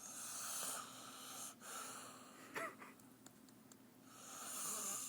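A woman asleep and snoring: long, hissing, wheezy breaths, the last one swelling louder near the end, with a short squeak about halfway through.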